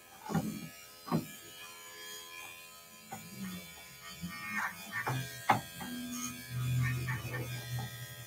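Corded electric dog-grooming clippers running steadily while shaving the fur on a cocker spaniel's leg and paw. A few sharp clicks break in, and a deeper low hum grows louder near the end.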